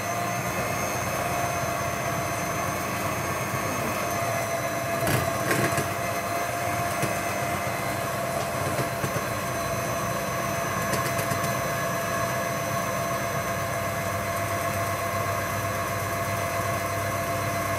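Electric hand mixer running steadily with its beaters in a bowl of cake batter, an even motor whine throughout. There is a brief knock about five seconds in.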